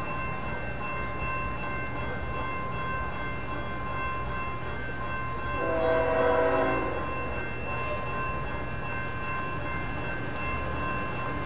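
Grade-crossing warning bell ringing steadily over the rumble of an approaching diesel freight train. About six seconds in, the BNSF lead locomotive's air horn sounds one blast of about a second and a half.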